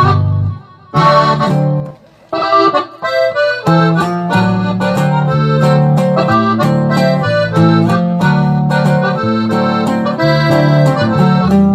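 Accordion playing an instrumental passage between sung verses, over a steady bass line. Two short breaks in the first two seconds, then continuous rhythmic playing.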